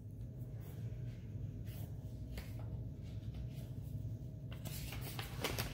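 Faint rustling of paper as a picture book is handled and a page is turned, with the busiest rustling near the end, over a steady low hum.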